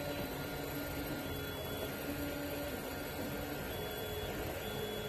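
3D printers running: stepper motors sounding short steady notes that step from one pitch to another every second or so, over a steady low hum.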